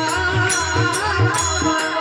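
Devotional Marathi bhajan music: a male voice sings a drawn-out, wavering ornamented phrase over regular mridang drum strokes, sharp high metallic strikes keeping the beat, and a steady held drone.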